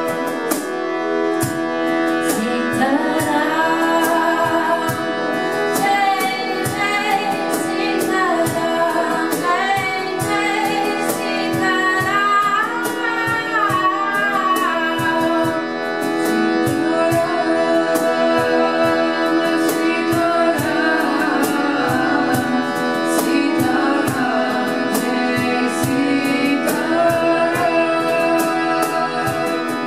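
Kirtan chant: a woman sings a melismatic devotional melody over the steady held drone of a harmonium, with regular percussion strikes keeping time.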